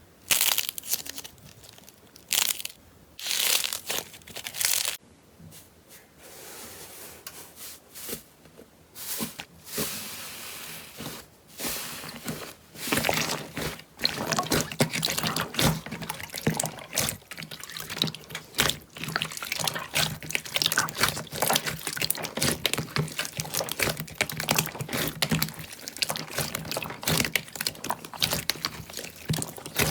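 Slime being handled for ASMR, making wet squishing and crackling sounds: a few separate squelches at first, then from about halfway a dense run of small pops and clicks.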